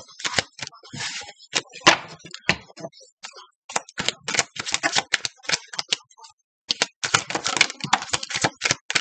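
A tarot deck being shuffled by hand: rapid, irregular flurries of card clicks and slaps, pausing briefly twice.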